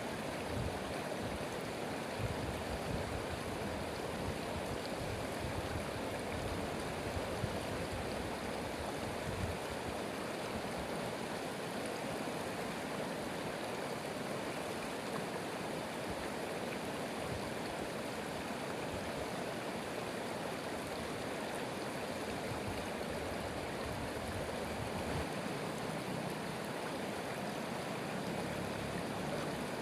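Stream water running steadily, a continuous rushing and babbling with no breaks.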